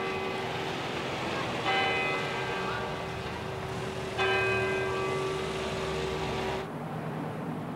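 A bell tolling slowly, struck twice about two and a half seconds apart, each strike ringing on over a steady hum. The ringing cuts off abruptly near the end.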